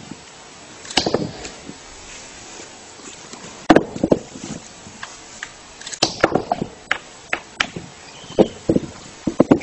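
A capuchin monkey pounding a stone down onto a wooden log, giving a series of sharp knocks in uneven clusters, as when cracking a nut with a stone tool.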